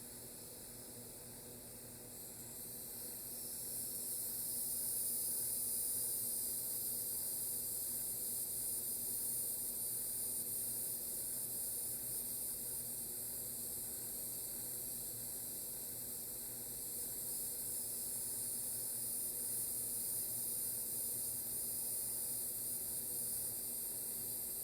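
Steady hiss of wind, swelling a few seconds in and then holding level, with a faint steady hum underneath.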